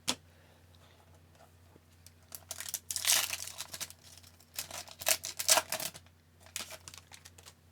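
A hockey card pack wrapper being torn open and crinkled, in three rustling bursts: about two seconds in, around five seconds, and shortly before the end.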